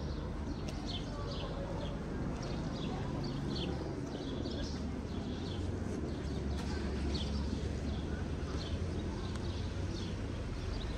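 Small birds chirping in short, quick notes again and again over a steady low rumble.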